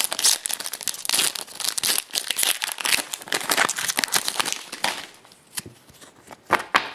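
Foil wrapper of a trading-card pack crinkling and tearing as it is opened by hand. The dense crackling stops about five seconds in, leaving a few light rustles as the cards come out.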